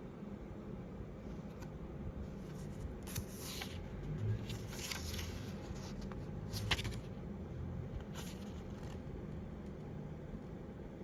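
Paper rustling as a printed instruction manual is handled and its pages turned, a few short swishes scattered over a low steady hum.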